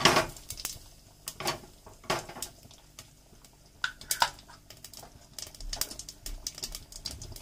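Cumin seeds and whole spices crackling and popping in hot oil in a pressure cooker, a tempering (tadka): a scatter of sharp, irregular pops and clicks.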